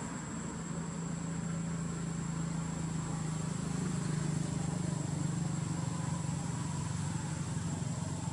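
Steady low drone of a running engine, with a thin steady high tone above it; it grows slightly louder midway.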